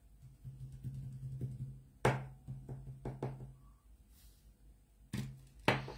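A woman crying quietly: a low held moan in her voice, broken by sharp sniffs and catches of breath, with two louder ones near the end.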